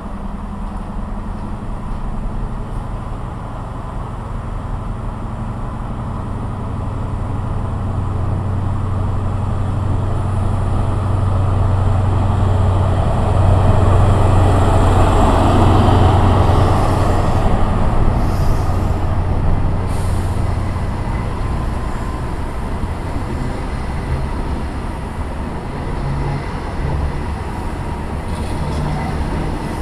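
A train passing through the station. Its low, steady drone builds to a peak about halfway through and then fades.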